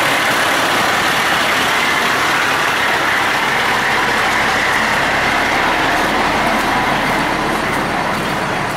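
Fire truck's diesel engine running at idle close by, a loud steady drone that eases slightly near the end.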